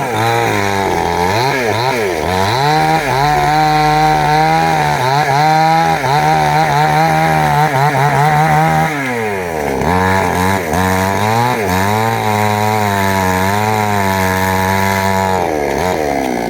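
Two-stroke chainsaw running at high revs while cutting into a jackfruit tree, its pitch wavering as the chain takes load. About nine seconds in the revs drop sharply, then climb back.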